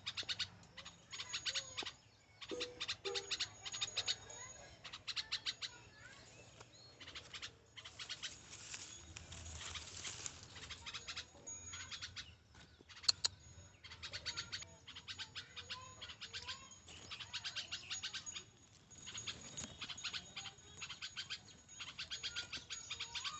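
Bulbuls calling: repeated bursts of rapid, sharp chirps, each burst lasting about a second or two, with short pauses between them.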